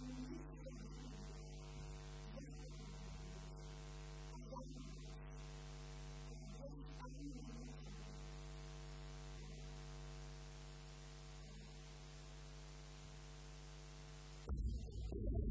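Steady electrical mains hum with a ladder of evenly spaced overtones, under a woman's faint speaking voice in the first half. A sudden loud sound breaks in about a second before the end.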